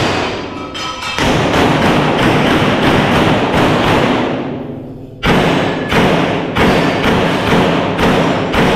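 Pistol shots fired in quick strings during a timed stage run, about three a second, with a short break a little past the middle before the firing resumes.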